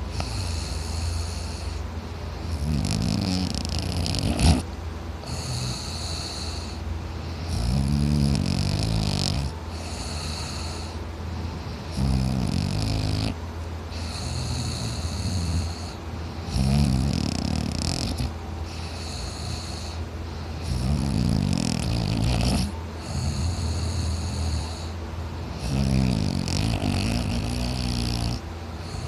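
A man snoring loudly in deep sleep: a rattling throat snore on each breath in, about every four and a half seconds, with a breathy out-breath between. A steady low hum runs underneath, and there is a sharp click about four and a half seconds in.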